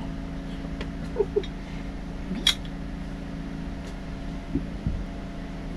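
Tongue-and-groove pliers clicking and knocking in a boat's bilge as a piece of debris is fished out: a few sharp clicks, the loudest about two and a half seconds in. A steady low hum runs underneath.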